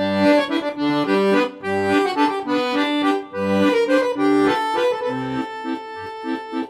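Instrumental background music: a melody over a regular, repeating bass line.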